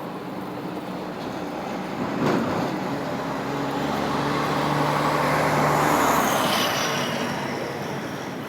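A motor vehicle driving past on the street: its engine hum and road noise grow louder to a peak about six seconds in, then fade. A short knock sounds about two seconds in.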